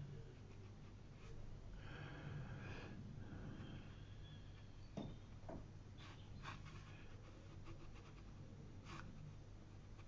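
Very faint sounds of a fine watercolour brush dabbing and stroking on paper: soft rustles and a few light ticks over a low steady hum.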